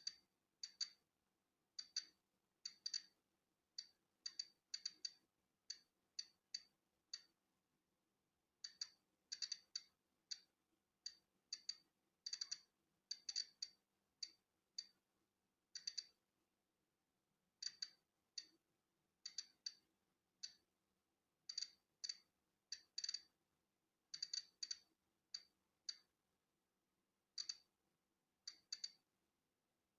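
Polon EKO-C digital Geiger counter clicking at random intervals as it detects natural background radiation: sharp, high clicks, some singly and some in quick bunches of two or three, with a pause of a couple of seconds around a third of the way in.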